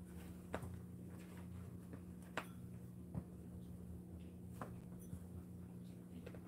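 Quiet room with a steady low electrical hum and a handful of faint short clicks and rustles from the dachshund puppies shifting about in their playpen.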